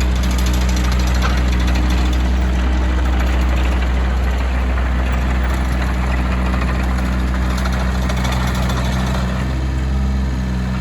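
Case CX36B mini excavator's diesel engine running at a steady speed, a constant low hum with mechanical clatter above it.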